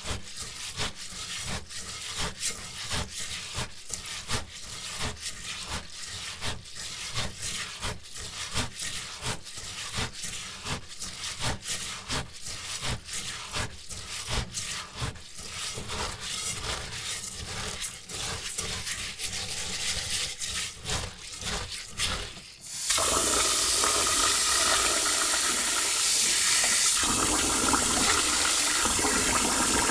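Rice being washed by hand in a bowl: the wet grains are scrubbed and swished in a quick, steady rhythm. About 23 seconds in, a tap is turned on and water runs steadily and loudly to rinse the rice.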